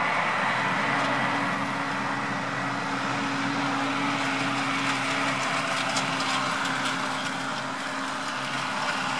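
Steady engine-like hum over outdoor background noise, with a low droning tone held through most of it.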